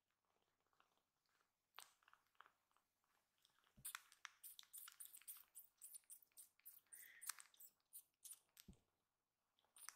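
Faint, soft clicking and smacking from a newborn kitten mouthing and suckling at a person's fingers, sparse at first and busier after about four seconds, with two dull bumps from handling.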